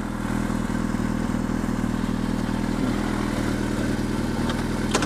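2003 Yamaha YZF-R6's 600 cc inline-four engine idling steadily at a constant pitch, with a short click near the end.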